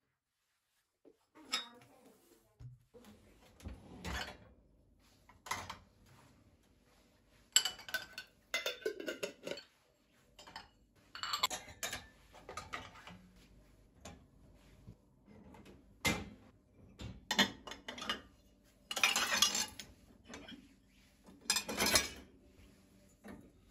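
Dishes and cutlery clinking and clattering as they are handled, in a series of short, irregular clatters with pauses between.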